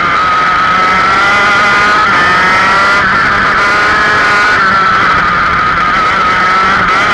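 Go-kart engine running at high revs, heard from on board the kart: a loud, high-pitched engine note that rises and falls slightly with the revs as the kart drives through the lap.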